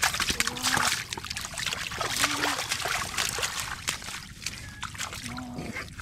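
Shallow muddy water splashing and sloshing in quick irregular bursts as a large fish thrashes and is grabbed by hand.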